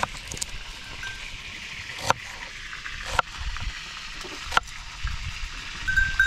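Kitchen knife cutting through an onion onto a plastic cutting board: a few sharp single knocks of the blade hitting the board, a second or more apart, over a steady background hiss. A brief high ringing tone comes near the end.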